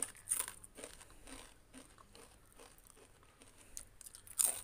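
Crisp crunching of a deep-fried pappada vada, a papadum in rice-flour batter, as it is bitten and chewed: irregular crackles with a louder crunch near the end. The crunch shows it has fried up perfectly crisp.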